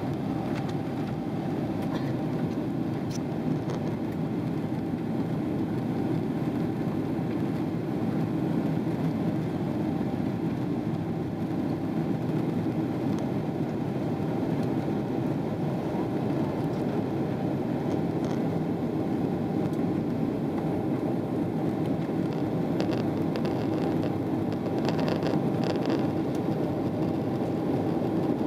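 Steady cabin noise of a Boeing 777-300ER in flight, heard inside the cabin: the GE90-115B engines and the airflow over the fuselage as an even low rushing drone with a faint steady hum.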